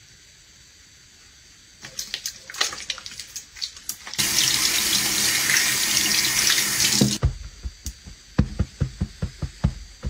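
Wet clicks and squishes from the soapy hands. A bathroom sink tap then runs for about three seconds over the hands as they are rinsed, and stops suddenly. A quick run of soft thumps follows.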